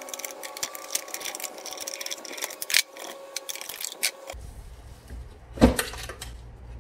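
Rapid ratchet clicking as a ratchet driver backs out the screws holding the large plastic cover inside the X-ray tube housing. After a few seconds it stops, and a single loud knock follows as the cover is lifted free.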